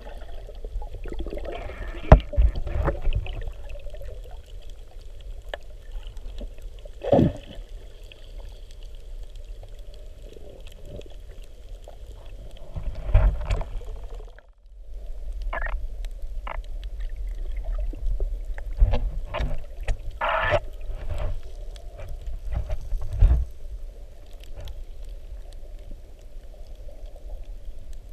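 Underwater ambience heard through a camera's housing: a steady low rumble of moving water with scattered clicks, knocks and short bursts of noise. It cuts out briefly about halfway through.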